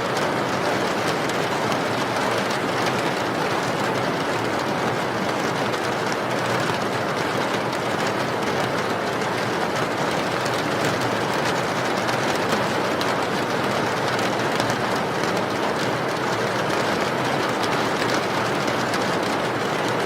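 Steady heavy rain: a dense, even hiss with faint scattered drop ticks.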